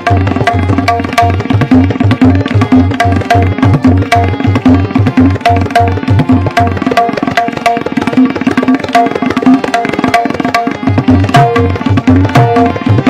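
Tabla played fast, dense strokes on both the right-hand dayan and the left-hand bayan with its deep resonant bass, over a harmonium holding a repeating lehra melody that keeps the cycle.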